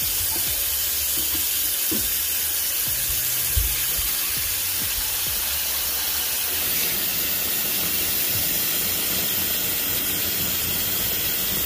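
Hot water from a kitchen tap running steadily into a stainless steel sink as it fills, with a brief low knock about three and a half seconds in.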